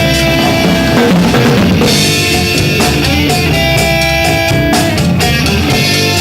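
Live rock band playing an instrumental passage: a drum kit keeping a steady beat under guitar and held chords.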